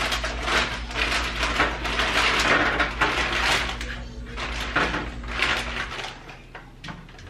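Crinkling and rustling of a plastic food bag as it is handled and shaken out over a stovetop pan, easing off after about four seconds.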